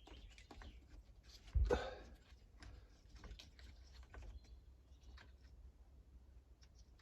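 Light clicks and taps of small parts being handled while fuel lines are fitted on a petrol hedge trimmer, with one louder thump about a second and a half in.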